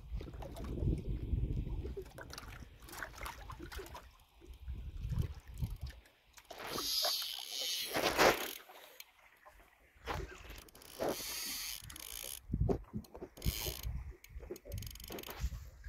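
Shimano spinning reel being worked: irregular clicks and mechanical rattling from the reel, with bursts of rushing hiss about halfway through and again near three-quarters of the way.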